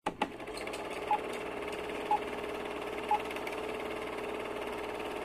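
Old-film countdown sound effect: a steady, clattering film-projector whir that starts abruptly with a few clicks, with three short beeps, one a second, as the leader counts down.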